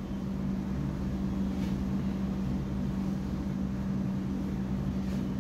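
Steady low mechanical hum with a constant droning tone.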